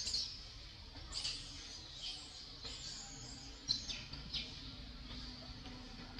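Short, high-pitched chirping calls, six or seven of them spaced unevenly over a few seconds, over a faint low hum.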